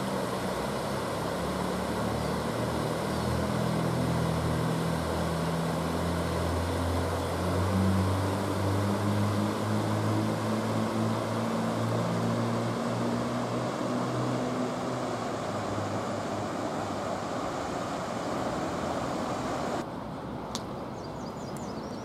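Rushing water of a river's rapids, a steady hiss. Over it a low engine drone from a passing vehicle swells and fades away. Near the end the water sound cuts off sharply to quieter outdoor ambience with a single click.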